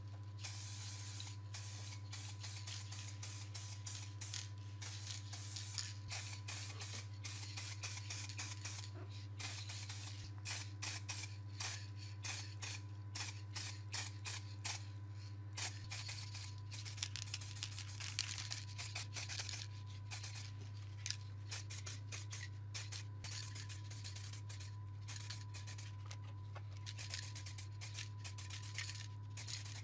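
Aerosol spray-paint can hissing in many short, rapid spurts as it paints a plastic headlight reflector and shroud, over a steady low hum.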